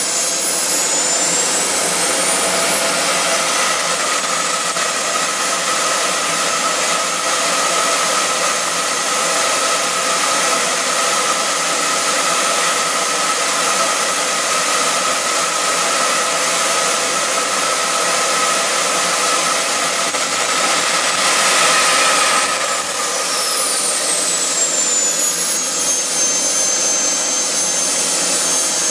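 JetCat P-160 model jet turbine running with a steady rush and high whine. About two-thirds of the way through it is throttled up briefly, the whine climbing and the sound growing louder, then it falls back, never going past half throttle.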